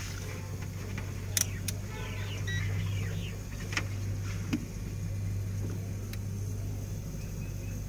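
A steady low hum under several short, sharp clicks and taps from hands handling wiring and a multimeter test probe in the engine bay.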